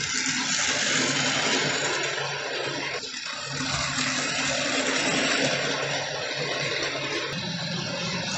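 Hornby Dublo electric model trains running on three-rail metal track: a steady rolling, whirring clatter of wheels and motors. It swells twice as a locomotive passes close by.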